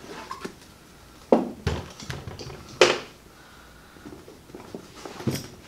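Handling noises of hard objects being put into and taken out of a canvas bag: three sharp knocks and clunks within the first three seconds, the last the loudest, then a couple of lighter taps near the end.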